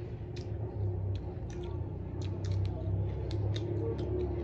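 Close-up eating sounds: fingers squishing and mixing biryani rice, with chewing and lip smacks, heard as a string of short, irregular wet clicks over a steady low hum.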